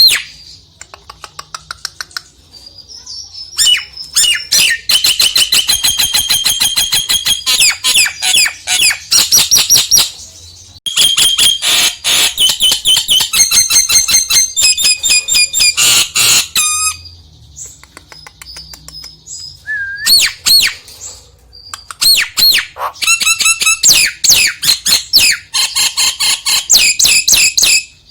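Nias hill myna calling loudly: whistles, squawks and long runs of rapid repeated chattering notes in several bouts with short pauses, as a lure song to set a quiet myna singing.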